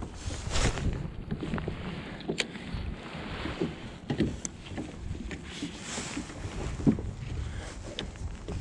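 Wind buffeting the microphone over water lapping at kayak hulls, with a few light clicks and knocks from the boats and fishing gear.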